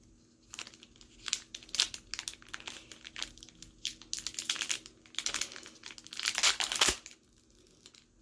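Foil wrapper of a Pokémon booster pack crinkling and tearing as it is worked open with difficulty: a run of sharp crackles that grows denser and louder toward the end and stops about seven seconds in.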